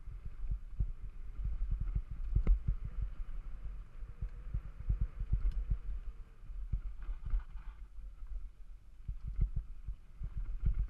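Mountain bike rolling over a bumpy dirt trail, heard close up: a steady low rumble with frequent knocks and rattles as it jolts over the ground.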